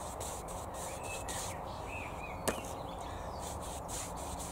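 Paintbrush swishing wood stain onto the wooden pickets of a fence in quick, irregular strokes. There are faint short high chirps, and a single sharp click about two and a half seconds in.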